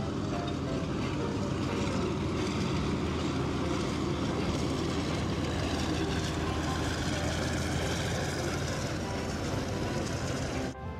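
Diesel-hauled heritage passenger train rolling past: a steady rumble of carriage wheels on the rails as the coaches go by. It cuts off suddenly near the end.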